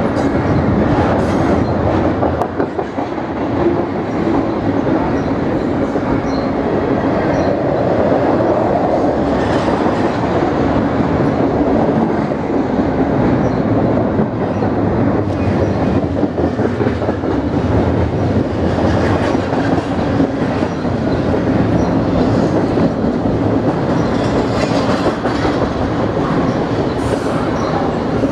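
BNSF double-stack intermodal freight train's well cars rolling past close by: a loud, steady rumble of steel wheels on rail with occasional clicks.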